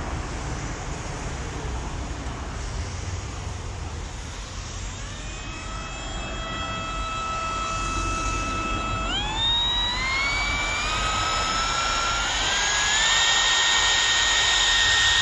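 Makita 18V cordless compact router's brushless motor starting up about a third of the way in with a steady whine, then rising in several steps to a higher, steady pitch as its speed dial is turned up to maximum.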